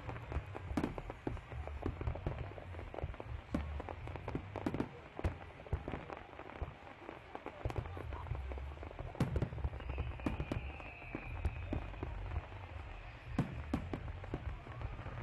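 Aerial fireworks display: a string of irregular sharp bangs and crackles from bursting shells over a steady low rumble.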